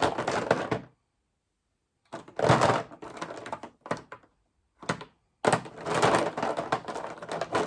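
Plastic alcohol markers clattering and rattling against one another as they are rummaged through in a marker stash, in several bursts with short knocks between; the longest burst comes near the end.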